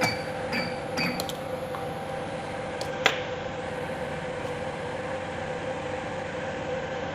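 An automatic ribbon cable cutting and stripping machine working: a run of quick, ringing metallic clicks about two a second that stops about a second in, then a single sharp click about three seconds in, over a steady machine hum.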